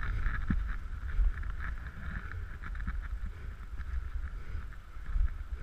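Low wind rumble on the microphone of a camera moving along a gravel forest track, with a steady scratchy crackle of movement over the ground as a harnessed husky team pulls.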